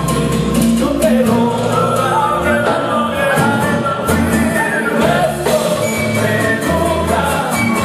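A Canarian folk ensemble playing a ballad live: male voices singing over strummed and plucked guitars and lutes, with a steady bass line underneath.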